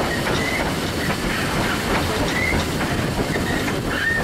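Victorian Railways K class steam locomotive K160 rolling slowly along a station platform, heard from its footplate: a steady rumble and clatter from its wheels and running gear, with short high squeals several times, typical of wheel flanges on the track.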